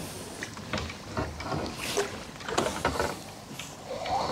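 A hooked carp being played in close on a rod and fixed-spool reel: water splashing, with scattered short clicks and knocks throughout.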